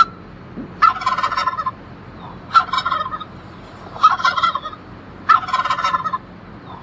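Farm fowl giving four rapid, warbling calls, each under a second long and spaced about a second and a half apart.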